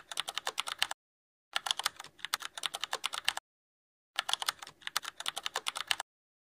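Rapid typing on a computer keyboard: quick runs of key clicks in three spells of about two seconds each, with abrupt dead-silent gaps between them.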